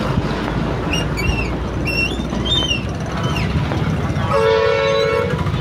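Low, steady engine rumble of idling vehicles, with a multi-tone vehicle horn sounding for about a second near the end.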